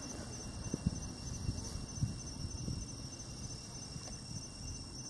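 Insects, crickets by their sound, chirping in a steady high repeating pulse, over a low rumbling background with a few short soft thumps.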